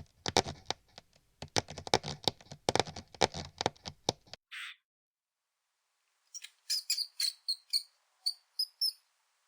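Mouse sound effects: a rapid pattering of tiny scurrying clicks for about four seconds, then a brief pause and a string of short, high squeaks.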